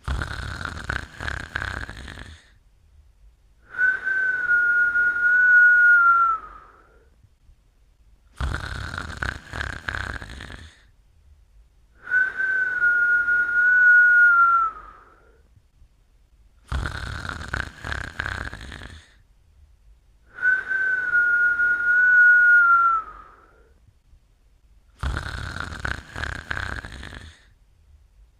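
A sleeper snoring in a slow, regular rhythm: each breath brings a rough snore, then a steady high whistle about three seconds long that sags slightly in pitch as it fades. The cycle repeats about every eight seconds, four times.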